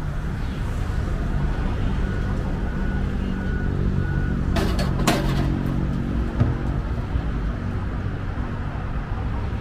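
A vehicle engine running steadily with a low hum. A brief cluster of sharp clicks comes about halfway through.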